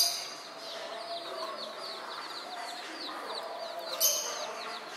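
A small animal chirping rapidly, several short high falling chirps a second, with a louder, sharper high call right at the start and another about four seconds in.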